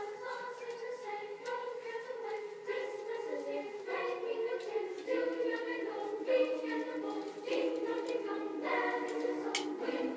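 Choir singing held chords, several voices at once, changing chord every second or so.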